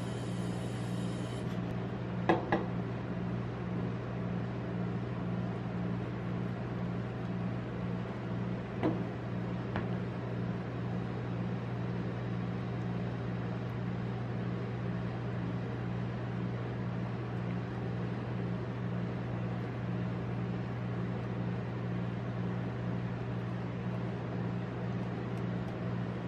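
Steady low hum of an ice cream roll machine's refrigerated cold plate running, with a few light taps about two seconds in and again around nine to ten seconds.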